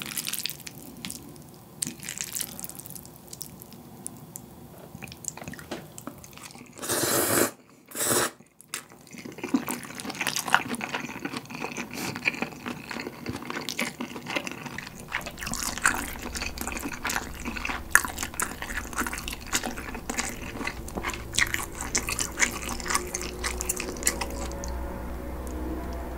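Close-miked wet eating sounds: chewing and slurping of cold bibim ramen noodles with roast pork belly, many small wet clicks and smacks, with two louder slurps about seven and eight seconds in.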